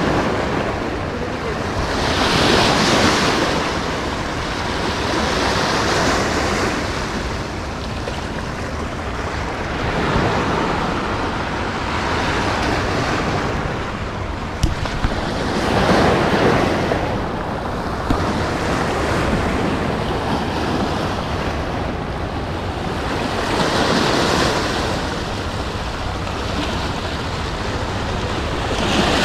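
Small sea waves washing over the rocks at the foot of a seawall, the surge swelling and falling every few seconds, with wind buffeting the microphone.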